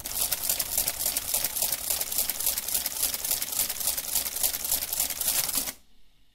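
Olivetti Multisumma 20 electromechanical adding machine working through a multiplication and printing the answer on its paper roll: a fast, even mechanical clatter of repeated machine cycles that stops abruptly near the end.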